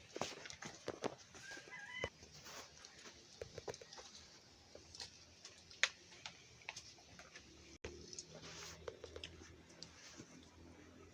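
Scattered light clicks and knocks, with a short bird call about two seconds in and one sharper knock near the middle.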